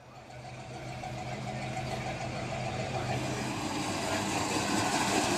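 A dubbed-in motor-vehicle engine idling with a steady low hum, fading in from silence and growing steadily louder, used as the sound for a toy pickup truck.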